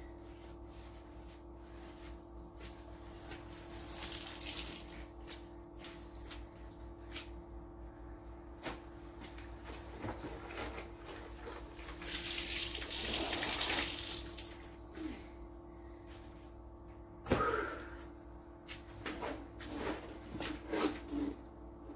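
Water splashing and dripping in a bucket as a cleaning cloth is rinsed and wrung out by hand, swelling louder for a couple of seconds past the middle, with a sharp knock a few seconds before the end. A faint steady hum runs underneath.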